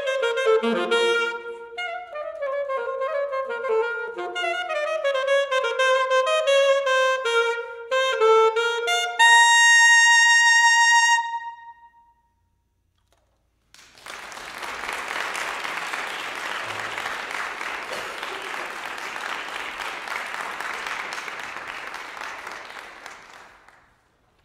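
Solo alto saxophone playing a fast run of notes, ending on a long held high note about ten seconds in. After a short silence comes about ten seconds of applause that fades out near the end.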